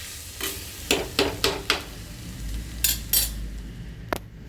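A spatula stirring stir-fried greens in a pan, with a series of short scrapes and clinks against the metal, spaced irregularly.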